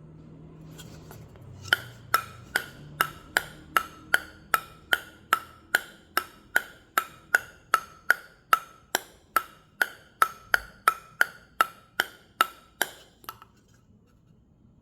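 Table tennis ball bounced steadily on a Butterfly Korbel all-wood blade, about thirty crisp clicks at roughly two and a half a second, each with a short ring. They start about two seconds in and stop a couple of seconds before the end.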